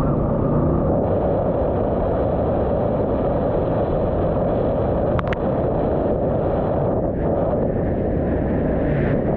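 Jet boat under way: its engine and water jet make a steady rushing noise, with wind buffeting the microphone. One brief click about five seconds in.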